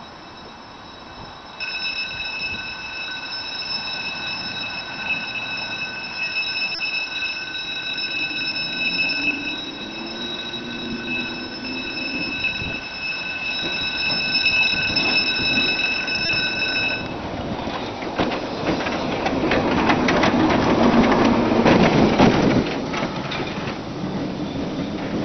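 Tram wheels squealing against the rails in a steady, high, many-toned screech that starts a second or two in and cuts off after about 17 seconds. The tram then rumbles and clatters past over the track, loudest a few seconds before the end.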